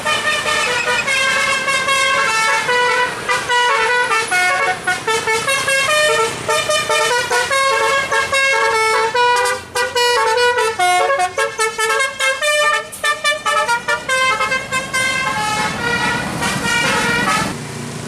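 Tour bus's telolet basuri horn, a multi-tone musical horn, playing a long, quick melody of notes stepping up and down in pitch, which stops shortly before the end.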